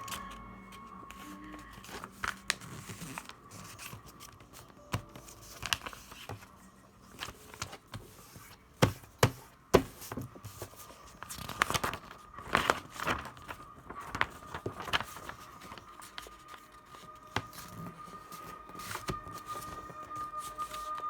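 A sheet of paper being handled and folded: irregular crinkling and crisp creasing sounds, with a cluster of louder snaps through the middle.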